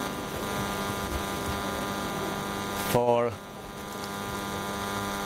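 Steady electrical mains hum, a buzz with many even overtones, under a pause in a talk. About three seconds in, one short vocal sound breaks in briefly.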